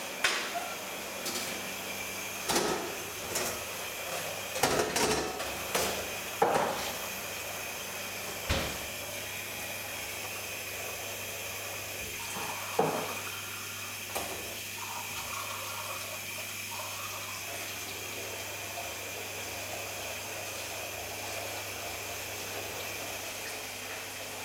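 Water running from a kitchen tap into a stainless steel sink during washing-up, with several clattering knocks of dishes and utensils in the first eight seconds.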